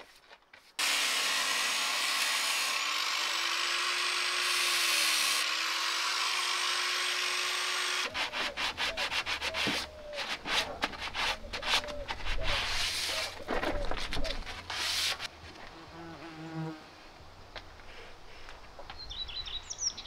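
A power tool runs steadily for about seven seconds. Then a hand scraper and sandpaper rub in quick, uneven strokes along the cut edges of a plywood panel.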